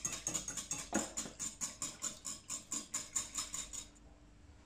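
Wire balloon whisk stirring tare into tonkotsu broth in a ceramic bowl, its tines clicking against the bowl in a quick even rhythm of about six strokes a second. The whisking stops about four seconds in.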